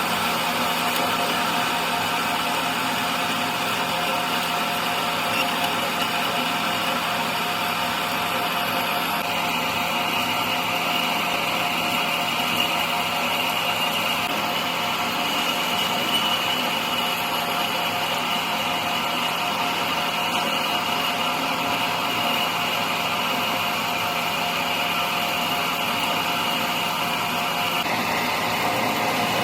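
A motor-driven workshop machine or power tool running steadily with a constant whine. The whine brightens about ten seconds in and shifts slightly near the end.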